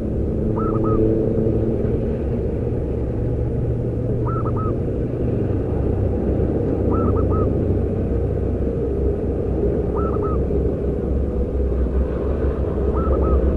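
Zebra dove (perkutut) cooing: five short, soft phrases of a few notes, about one every three seconds. A steady low rumble runs underneath and is louder than the calls.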